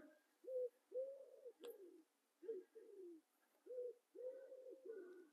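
A pigeon cooing: a run of low, soft coos repeated in phrases, faint in the background. There is a single sharp click about one and a half seconds in.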